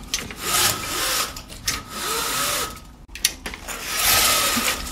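Window blind being pulled: a few repeated rasping strokes, each about half a second long.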